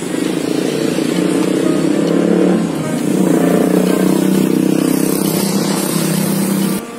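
Motorcycle engines running and passing close by in street traffic, a steady engine drone that dips briefly partway through and cuts off abruptly near the end.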